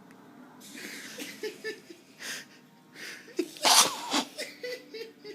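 A person's breathy puffs and snorts through the nose, then one loud sneeze-like burst a little under four seconds in.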